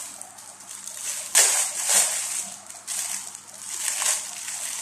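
Thin plastic film crinkling and rustling as burger patties are peeled off their plastic separator sheets. It comes in several bursts, the loudest about a second and a half in.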